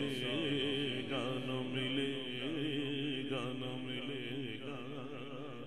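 A man singing a naat in Urdu through a microphone, drawing out a long, wavering, ornamented vocal line, with a steady low drone underneath.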